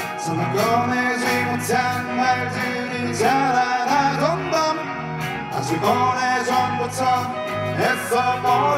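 A live rock band playing: two electric guitars, bass guitar and a drum kit keeping a steady beat with cymbals.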